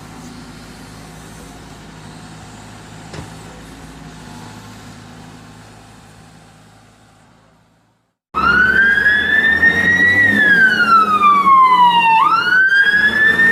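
A fire-engine siren starts suddenly about eight seconds in. It is one slow wail that rises, sinks over a few seconds, then jumps back up and climbs again. Before it, a faint steady background noise fades away into a brief silence.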